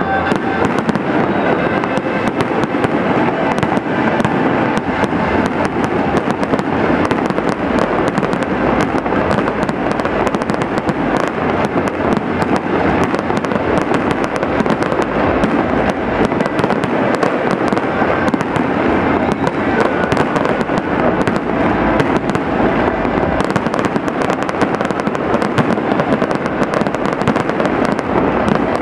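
Aerial fireworks going off in a dense, unbroken barrage of crackles and bangs.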